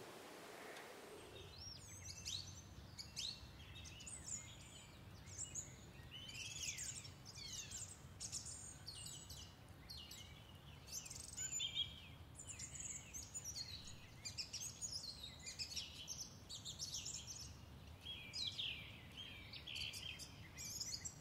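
Songbirds chirping and singing in quick, overlapping high-pitched phrases, starting about a second in, over a faint steady low hum.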